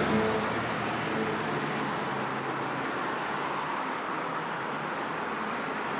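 Steady background noise, like street traffic, with music fading out in the first second.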